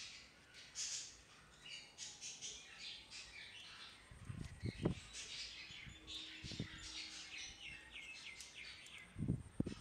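Small birds chirping and twittering in the background in quick repeated notes. A few soft knocks come from handling the plastic servo bracket, about four to five seconds in and again near the end.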